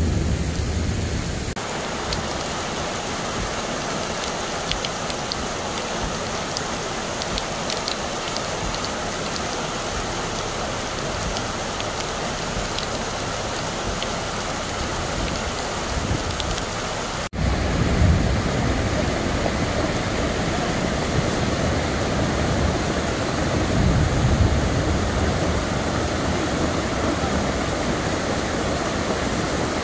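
Steady rushing of muddy flash-flood water: first tumbling down a rocky slope, then pouring over a concrete weir. After a sudden cut about 17 seconds in, the rush is louder and deeper.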